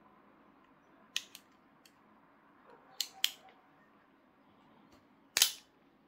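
Metallic clicks from an Italian stiletto switchblade's blade and lock mechanism. There are two quick double clicks, then near the end a single louder snap as the closed knife's spring-driven blade flicks open.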